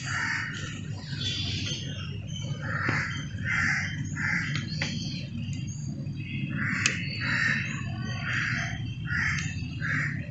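Crows cawing: a few harsh caws, then a longer run of five or six more about two-thirds of a second apart, over a steady low hum.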